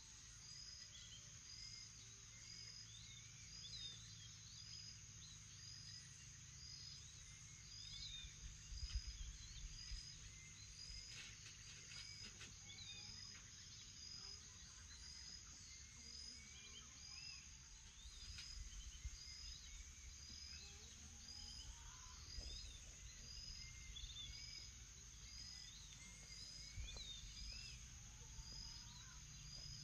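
Faint morning chorus of birds chirping and calling over a steady high insect drone, with one short high note repeating about once a second.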